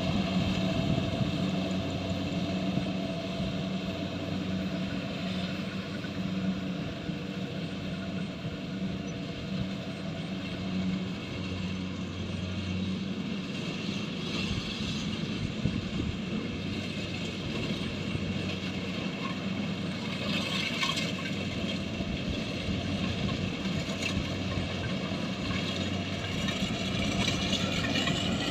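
Engine of a rice harvesting machine running steadily, its pitch climbing near the end.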